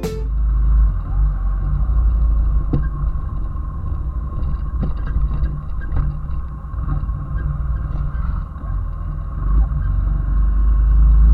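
Small 90cc Honda motorcycle running on the move. The engine's steady note sits under a heavy low rumble that rises and falls, typical of wind on the microphone while riding.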